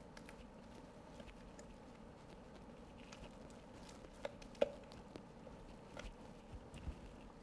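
Faint wet scraping and plopping of thick cornbread batter being pushed out of a ceramic bowl into a stainless skillet with a silicone spatula, with a few small taps of the spatula about halfway through and near the end.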